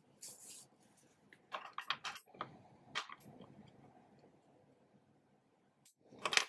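Close handling of a crocheted yarn flower: yarn rustling as it is drawn through the stitches with a metal tapestry needle, with scattered small clicks and ticks. Near the end comes one sharp snip as small embroidery scissors cut the yarn end.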